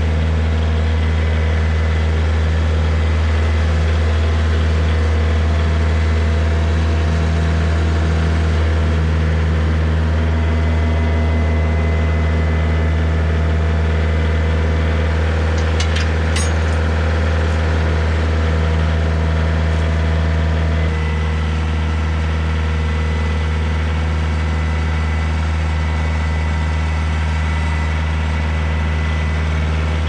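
Kioti DK40se compact tractor's diesel engine idling steadily, with a few light clicks about halfway through and a slight shift in the engine note about two-thirds of the way in.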